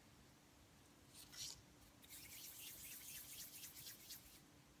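Faint, high-pitched rustling and rubbing of hands handling fondant, briefly about a second in and then for about two seconds, over a faint steady room hum.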